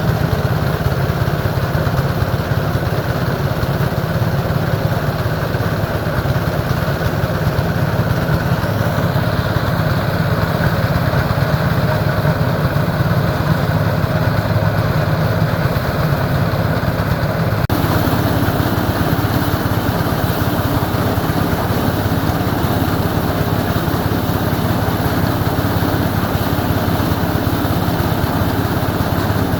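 An engine running steadily at an even speed. About two-thirds of the way through, the sound changes abruptly.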